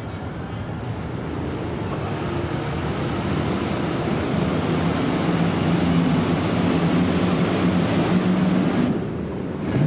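Speedboat engine running at speed over open water, a steady drone with rushing spray that grows louder over several seconds as it nears, then drops away suddenly near the end.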